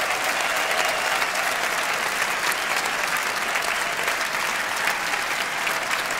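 A large audience applauding, a steady wash of clapping after the song has ended.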